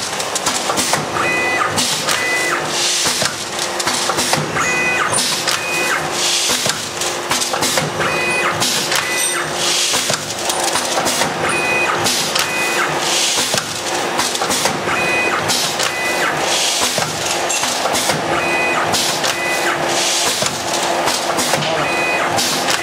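Four-lane automatic sachet packing machine running: a steady mechanical clatter and hum, with a hiss of compressed air every few seconds as its pneumatic cutting and sealing section cycles. Short high-pitched chirps recur in step with each cycle.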